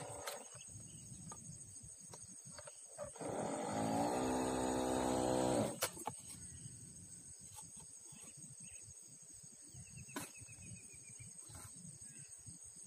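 A long, low animal call, starting about three seconds in and lasting about two and a half seconds, swelling at the start and dropping off at the end. A steady high insect shrill runs underneath.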